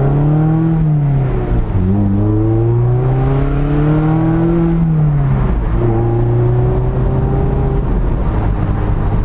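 Mazda MX-5 ND four-cylinder engine heard through an Ulter-Sport stainless centre-exit sports exhaust, revving as the car accelerates. The note climbs and falls away twice, then holds steady at a lower pitch from about six seconds in.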